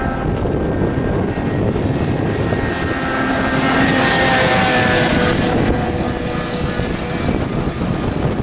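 Snowmobile engines running hard as the sleds skim across open water, a steady drone with the hiss of spray thrown from the track.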